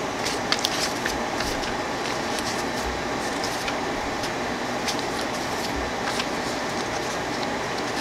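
Sheets of printed paper and thin vellum being handled and shuffled, with light scattered rustles and crinkles over a steady background hiss.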